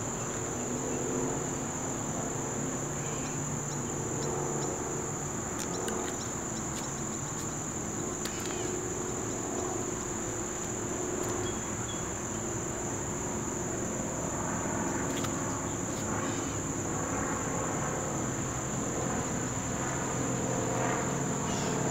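Insects droning in one steady, unbroken high-pitched tone, with a faint low hum beneath and a few light clicks.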